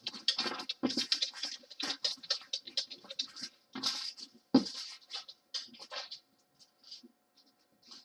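Small plastic bags of diamond painting drills crinkling and rustling as they are handled and moved about, in quick irregular bursts.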